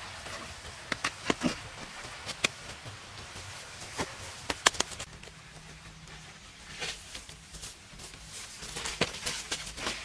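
Stones set by hand clicking and knocking against each other, with a string of sharp clicks in the first half. In the second half comes gritty scraping of soil and grit as dirt is swept and packed around the stones.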